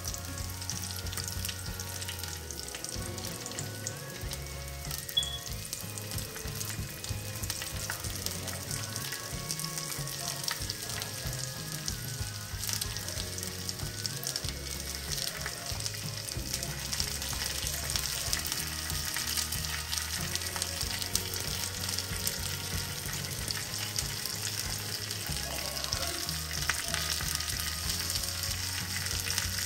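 Sliced onion and minced garlic sizzling in oil in a hot nonstick frying pan, stirred with chopsticks as green onions and green beans are tipped in. The sizzle grows louder past the halfway point.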